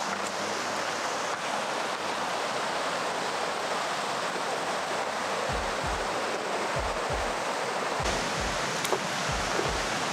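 A steady rushing noise, with soft low thumps coming in quick pairs from about halfway through.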